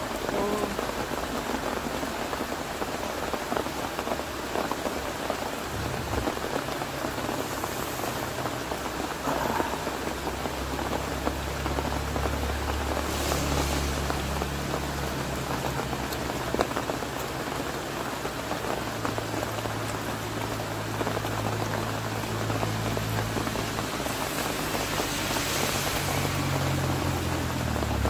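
Steady rain falling and pattering on a fabric tent canopy overhead, with a low steady hum underneath.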